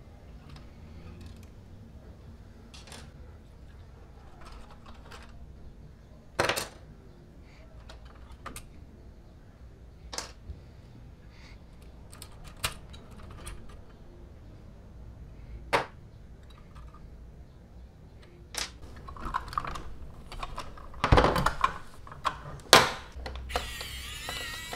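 Small, scattered clicks and taps of model car parts being handled and pried loose, with two louder knocks near the end as the model is turned over and set down on the table. Just before the end, a small electric screwdriver starts running on the underside.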